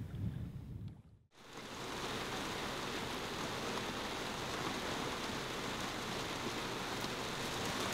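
Steady rain falling on a sailing yacht's canvas awning and cockpit deck. It fades in after a brief drop to silence about a second in.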